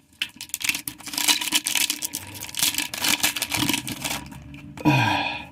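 Foil wrapper of a Yu-Gi-Oh booster pack crinkling and trading cards being handled and flicked through, a quick run of small clicks and rustles. A short louder rustle with a low falling sound comes near the end.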